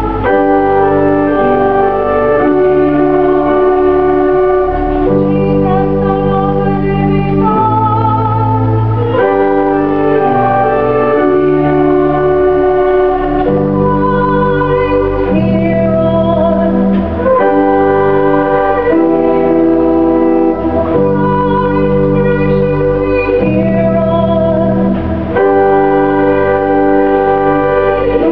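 Organ playing slow, sustained chords over a bass line, the chords changing every second or two.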